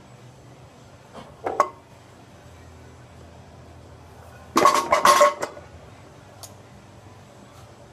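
225 lb loaded barbell's iron plates clinking briefly as the bar breaks off low blocks, then clanking several times as it is lowered back onto the blocks about five seconds in, the loudest sound.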